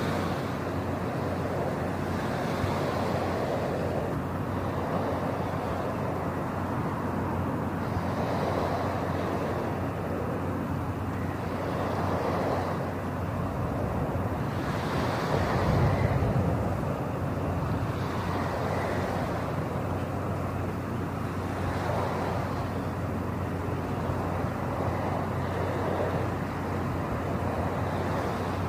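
Steady rushing noise over a constant low hum, swelling and ebbing every few seconds, loudest about halfway through.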